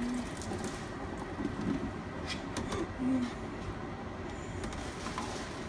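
Diced raw potatoes tipped off a plastic cutting board into a pot of water, giving a few short knocks and plops about halfway through, over a steady background noise.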